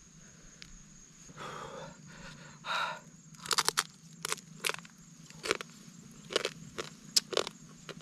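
Cooked stream crab shells being cracked and crunched: two short rustling scrapes, then from about halfway in a run of sharp, irregular cracks and clicks.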